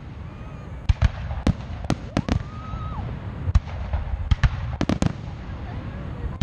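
Aerial fireworks shells bursting overhead: an irregular run of sharp bangs, some coming in quick pairs, over a low rumble.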